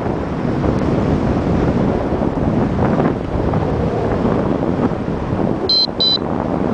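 Strong wind buffeting the microphone: a loud, steady rushing noise. Near the end come two short high beeps.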